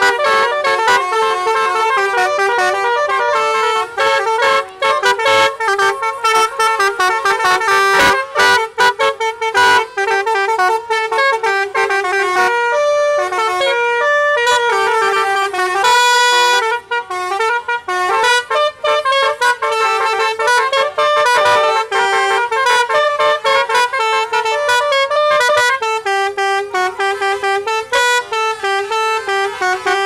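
A tour bus's multi-trumpet telolet horn, mounted on the roof, playing a fast melody note after note with a few short breaks, loud throughout.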